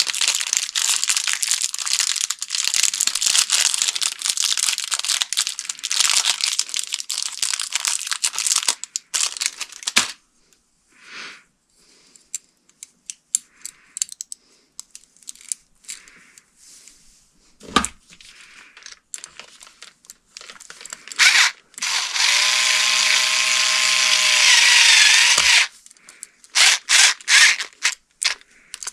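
Crinkling and crackling of handled material for about nine seconds, then scattered light clicks and knocks. A small power tool's motor then runs steadily for about three seconds, followed by a few more clicks.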